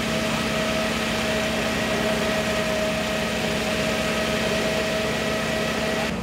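Engine of firefighting equipment running steadily at a constant speed, with an even hum. The sound changes abruptly just before the end.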